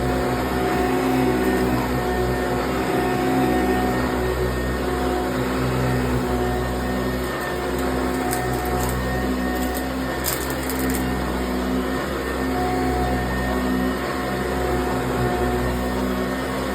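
Eureka high-performance self-propelled upright vacuum cleaner running steadily, its motor humming at an even level, with a few brief high crackles past the middle as bits of leaves are picked up.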